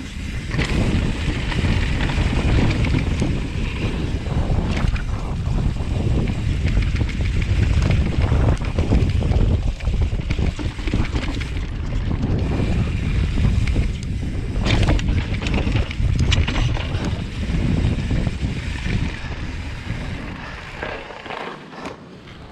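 Wind buffeting the microphone, mixed with the rumble and rattle of a mountain bike rolling fast down a dirt trail, with frequent short knocks from bumps. It dies down near the end as the bike slows.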